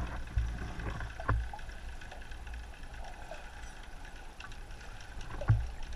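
Muffled underwater noise: a steady low water rumble with a few dull knocks, one about half a second in, another a second later, and a louder one near the end.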